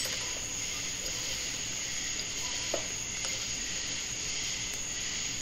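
Harmonic balancer puller bolts being threaded by hand into a small-block Chevy balancer: a sharp metal click at the start and two faint clicks a little after halfway, over a steady hiss.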